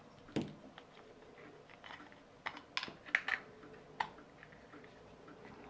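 Light, irregular clicks and taps of hard plastic parts being handled and pressed together as the blue and black halves of a litter picker's handle are fitted back into place.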